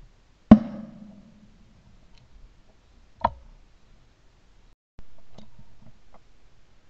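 Knocks and clicks from handling a shotgun carrying a barrel-mounted camera as it is swung onto flying doves. There is a sharp knock with a short ringing tail about half a second in, a second sharp knock about three seconds in, then light clicks and a brief rustle.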